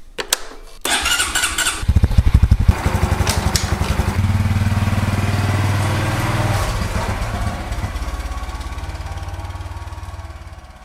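Motorcycle being started: a couple of clicks, about a second of starter noise, then the engine catches about two seconds in and runs with a low, even pulsing. It pulls away and fades over the last few seconds.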